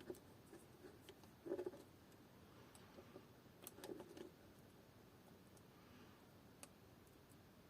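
Near silence with a few faint clicks and light taps of small hand tools against the remote's circuit board during desoldering, a small cluster about a second and a half in and another near four seconds.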